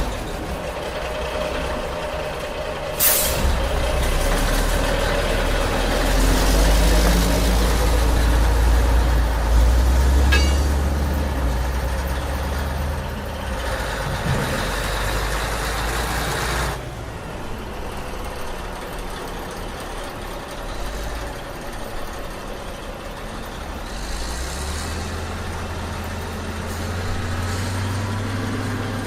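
Heavy quarry dump truck's diesel engine running with a deep, steady rumble, and a sharp air-brake hiss about three seconds in. The engine is loudest through the middle and eases off after about seventeen seconds.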